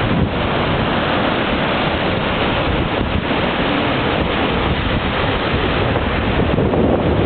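Small waves breaking and washing up a sandy beach, with wind buffeting the microphone as a steady, even noise.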